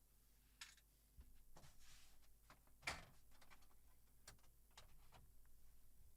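Faint scattered clicks and light knocks from handling the TV's plastic casing, one slightly louder knock about three seconds in.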